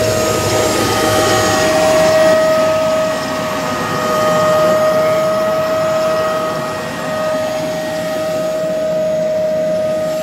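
John Deere 8400 tractor and 1990 air seeder running at a standstill, a loud steady machine noise with a constant high whine over it.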